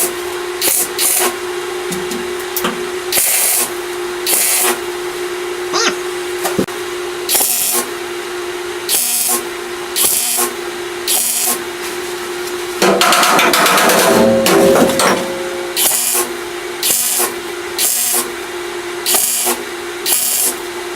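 MIG welder laying a series of short tack welds on sheet steel: brief crackling bursts of arc, one every second or so, with one longer, louder weld in the middle, over a steady hum.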